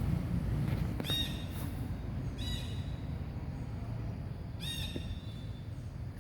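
Three short, high-pitched animal calls, about a second in, at about two and a half seconds and near five seconds, over a steady low rumble.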